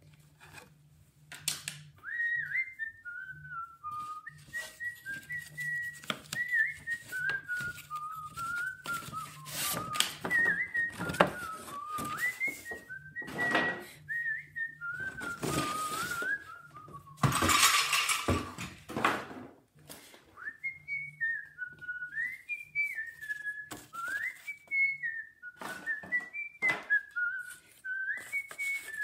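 A person whistling a wandering tune, starting about a second and a half in, over rustles and light knocks of paper set pieces being handled and moved; a louder stretch of rustling near the middle briefly covers the whistling.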